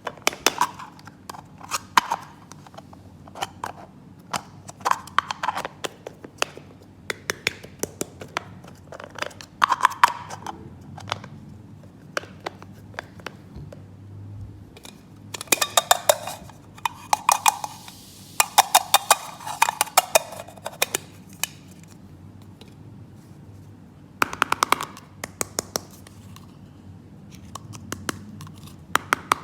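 Hard plastic toy pieces being handled: clusters of short, sharp clicks and taps, with a stretch of rapid clicking and rustling in the middle.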